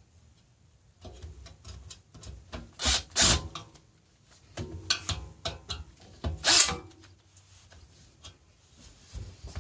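Hand tool working the bolts that fix the barstool's legs to its metal brace: a run of clicks and scraping, with two louder scrapes about three and six and a half seconds in.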